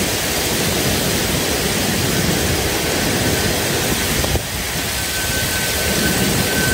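Heavy rain pouring down steadily in a thunderstorm, an even rushing hiss. A faint steady high tone joins about five seconds in.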